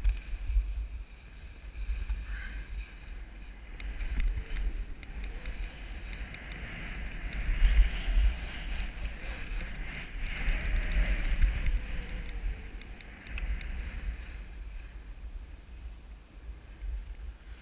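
Skis hissing and scraping over packed snow, swelling louder twice in the middle, over the low rumble of wind buffeting the microphone.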